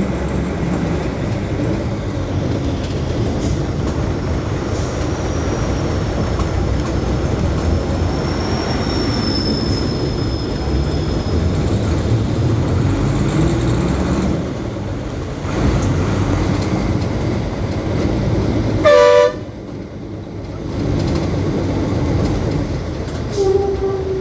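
Steady rumble of road traffic. A short, loud vehicle horn blast sounds about nineteen seconds in, and a shorter horn toot comes near the end.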